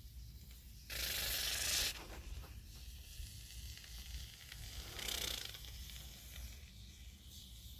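Expanding foam hissing out of a foam gun in two spurts, a longer one about a second in and a shorter one near the five-second mark.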